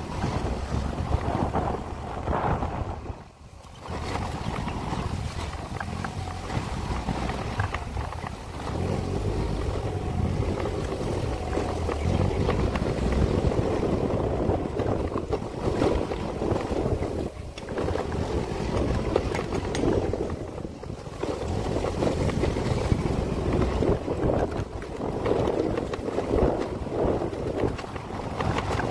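Wind buffeting the microphone over the rumble of a moving vehicle on the road, rising and falling unevenly. It drops away briefly about three seconds in.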